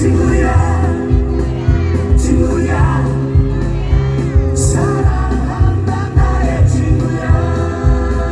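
A pop song performed live: a singing voice over a steady beat with heavy bass and sustained backing chords.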